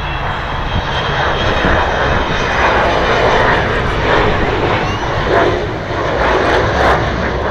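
Avro Vulcan delta-wing bomber flying past, its four Rolls-Royce Olympus jet engines giving a loud roar that builds over the first few seconds and then stays loud.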